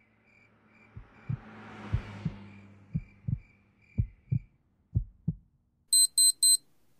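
A slow heartbeat, one lub-dub about once a second, five times over, with a hiss that swells and fades behind the first beats. Near the end an Oregon Scientific digital alarm clock gives three quick, high-pitched beeps.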